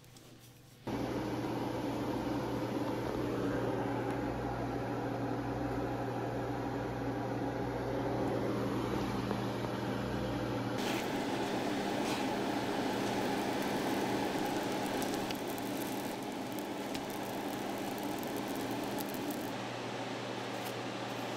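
Steady whir of a kitchen fan with a low hum, cutting in suddenly about a second in and changing slightly in tone a few times. Near the end come a few light clicks and scrapes of a metal spatula.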